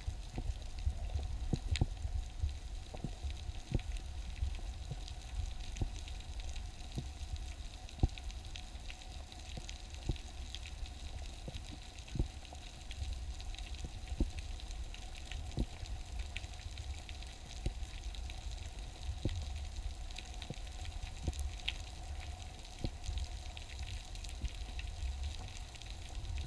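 Underwater ambience heard through a camera housing: a steady low rumble of water with scattered sharp clicks and crackles at irregular intervals.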